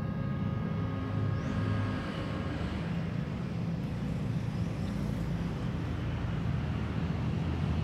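Steady low rumble of outdoor background noise, like distant traffic or machinery, with a faint steady whine that fades out about two seconds in.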